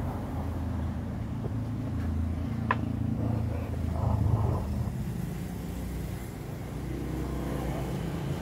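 A motor engine running steadily, a low, even hum, with one brief high chirp a little under three seconds in.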